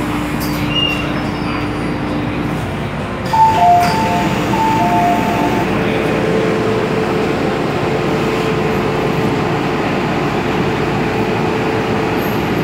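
Inside a stopped MTR M-Train car: the car's equipment gives a steady hum. A thump comes a few seconds in, then an electronic two-note chime sounds twice.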